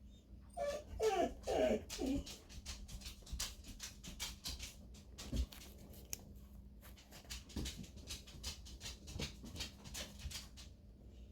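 Pet dog whining a few times with bending pitch, followed by a run of faint, irregular clicks and taps.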